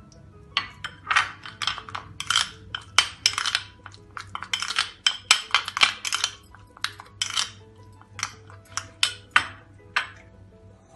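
Steel spoon stirring and scraping a thick spice paste in a small glass bowl: irregular clinks and scrapes, several a second, against the glass.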